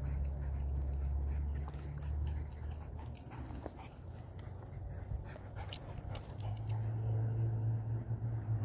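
Dogs playing on grass, panting, with a faint whine about two thirds of the way in, over a steady low rumble.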